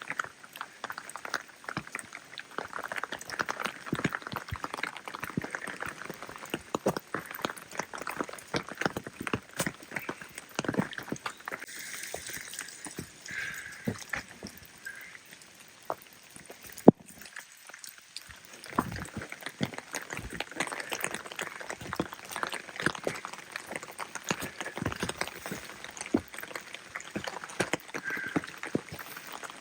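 Rain falling: a dense, irregular patter of drops over a steady hiss. The drops thin out briefly a little past halfway, where one sharp click stands out as the loudest sound.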